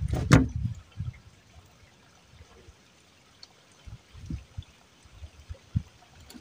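Water splashing and trickling, with a cluster of dull low thumps in the first second and a few more later on.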